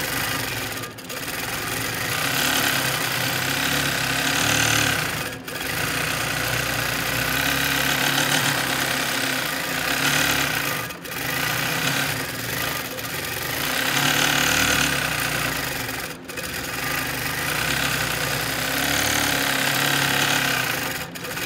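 Longarm quilting machine stitching, its needle running in a fast mechanical rattle that swells and eases as the machine speeds up and slows. The sound breaks off briefly about every five seconds.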